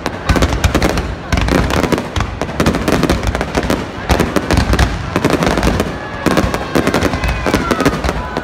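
Fireworks display: aerial shells bursting in rapid, overlapping succession, a dense run of loud bangs and crackle with no break. A faint tone glides in pitch over the last couple of seconds.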